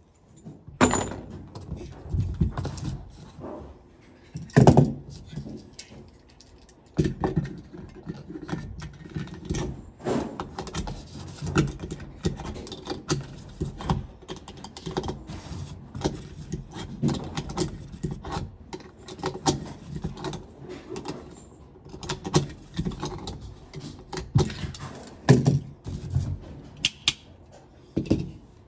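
Muffled gunshots at a shooting range, several sharp loud reports, the strongest about a second in, near five seconds in and near the end, with knocking and rustling clatter in between from the hidden, covered microphone.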